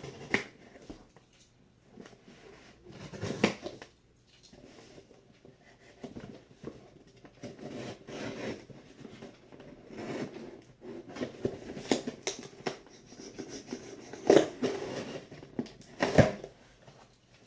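A cardboard box being cut open with a knife and handled: scraping and rustling of packing tape and cardboard, broken by several sharp knocks, the loudest near the end.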